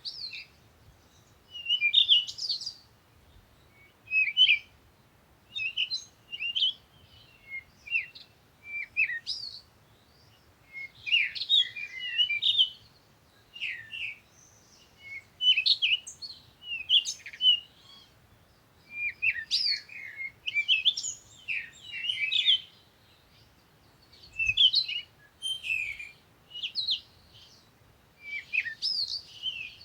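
Several songbirds chirping and trilling in short, high-pitched bursts, one after another, with brief quiet gaps between them.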